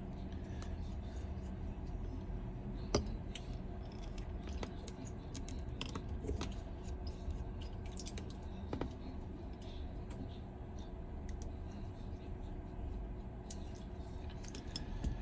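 Small repair tools clicking and scraping on a smartphone's parts during reassembly: scattered light clicks, one sharper about three seconds in, over a steady low hum.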